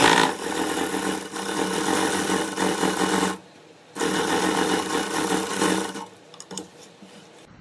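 Sewing machine stitching a seam in two steady runs, about three seconds and then about two seconds, with a short stop between them and a few light clicks near the end. The fabric has been turned to stitch back over the seam and make it a double seam.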